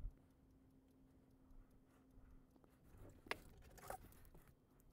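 Near silence: a faint steady hum, which stops about two and a half seconds in, from the Echo Wall Clock's hand motor as it moves the hands to set the time, followed by two faint clicks.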